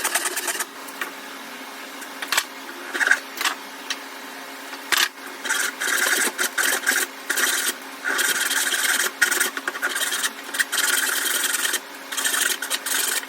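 Hand saw cutting through a wooden board, stroke after stroke, in runs broken by short pauses.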